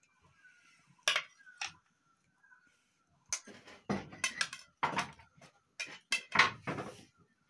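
Metal ladle clinking and scraping against a wok and a plate as a whole boiled chicken is lifted out and set down: two sharp clinks about a second in, then a run of clanks and scrapes in the second half, the loudest about six seconds in.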